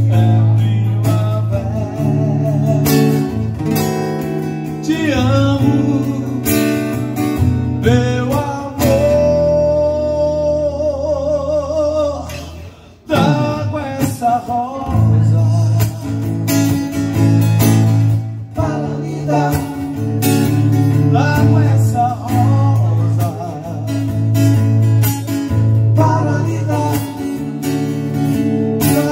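Live music: a man singing in Portuguese while strumming an amplified acoustic-electric guitar. A long held note with vibrato, then a brief break about 13 seconds in before the song picks up again.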